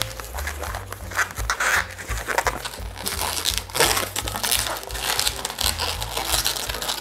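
Latex twisting balloon rubbing and squeaking in the hands as it is twisted into pinch twists, in short irregular bursts. Background music with a steady bass line plays underneath.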